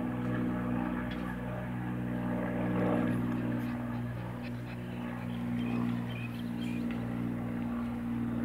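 An engine droning steadily in the background, its pitch shifting slightly about four seconds in.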